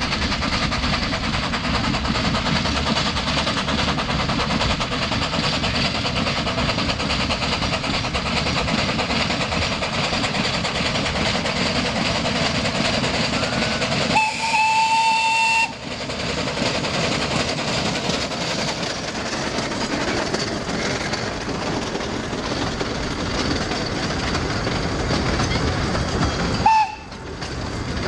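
A 2 ft gauge steam locomotive running past with its train of carriages. About halfway through, it gives a single steam whistle blast lasting about a second and a half.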